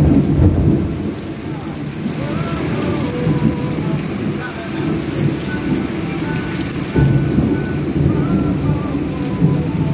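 Heavy rain pouring down and splashing off the edge of an awning, a loud, steady downpour with a low rumble beneath it.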